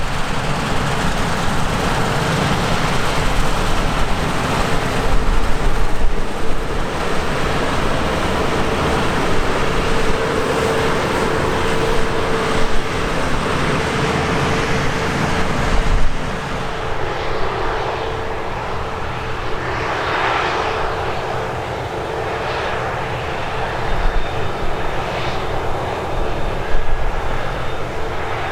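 Heavy farm machinery engines running at grain harvest, a continuous mechanical drone with a steady whine. About halfway through, the deep rumble drops away.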